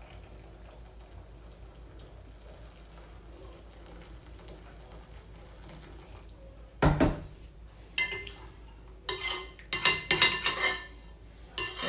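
Hot water poured quietly from a kettle into a glass mixing bowl. About seven seconds in comes a single loud knock, then a metal spoon stirring the water and clinking and scraping against the glass bowl's sides, again and again.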